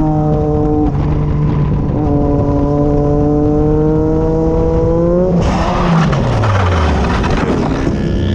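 Motorcycle engine pulling hard with revs climbing and one quick gear change near the start. About five seconds in, a sudden harsh rush of scraping noise lasts about three seconds while the engine revs fall steeply away, fitting the bike going down in a lowside and sliding after its tyres lost grip.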